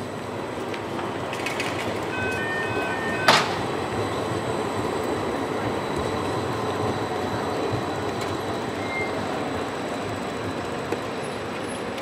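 City street traffic with a tram or train running on rails, a steady rumble of wheels and traffic throughout. A few short electronic beeps sound about two to three seconds in, and a single sharp clack comes just after three seconds.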